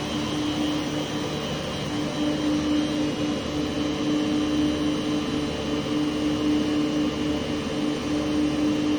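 Steady drone of boiler-room plant machinery: a constant rushing noise with a steady pitched hum over it.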